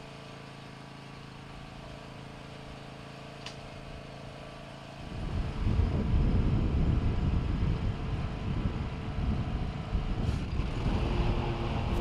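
Engine of a John Deere Z500-series zero-turn riding mower, first a steady low hum, then about five seconds in much louder and rougher running. A faint click comes just before the change.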